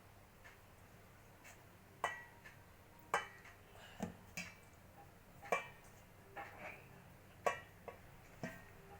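Kitchen utensils clinking against a bowl: about eight sharp, irregular knocks, some with a short ring, while water is added little by little to ragi flour and the dough is mixed.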